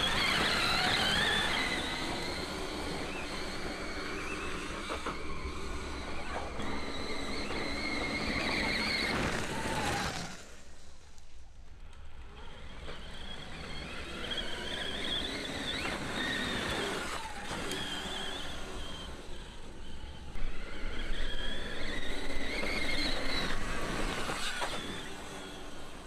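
Electric motor whine from a stock Sur-Ron electric dirt bike and a CYC X1 Pro Gen 4 mid-drive e-bike motor under acceleration. The high whine rises and falls in pitch with speed. It drops off sharply about ten seconds in, then builds again and is loudest in the last few seconds.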